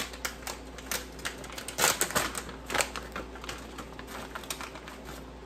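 Plastic bag of peeled garlic cloves crinkling as it is opened and handled, with irregular sharp crackles.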